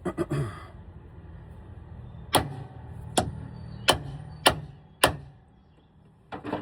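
Five sharp metal-on-metal hammer blows, evenly spaced about two-thirds of a second apart, driving a chisel to work a stuck steering shaft off its splines on a Freightliner M2.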